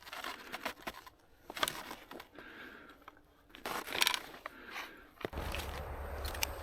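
Quiet, scattered clicks and scrapes of metal parts being handled while a loose chain is refitted on a Stihl MS261 chainsaw. A low steady hum joins about five seconds in.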